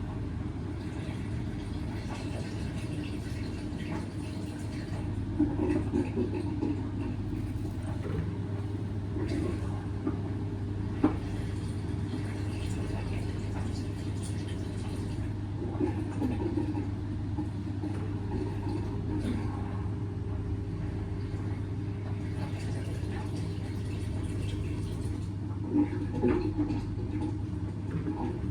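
Indesit washing machine's drain pump running steadily as it pumps the wash water out at the end of the main wash, with water gurgling through now and then and a single click about eleven seconds in.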